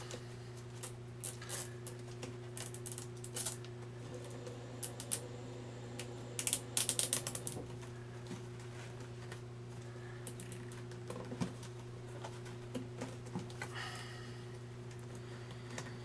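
Plastic cable tie being pulled tight around a Kirby vacuum bag's fill-tube adapter, its ratchet clicking in scattered short runs, with a quick burst of clicks about seven seconds in. A steady low hum runs underneath.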